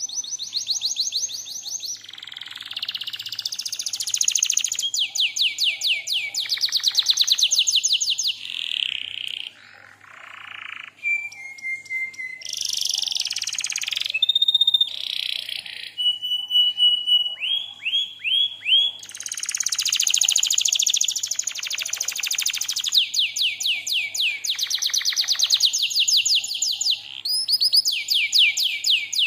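Domestic canary singing a long, continuous song of very fast rolling trills mixed with clear whistled notes and short slurs, with only brief pauses.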